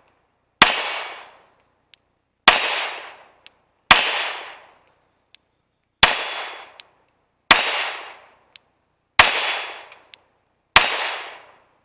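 Seven 9mm pistol shots from a Glock 43X, fired one at a time about every one and a half to two seconds, each a sharp crack that rings away over most of a second. A faint tick follows most shots.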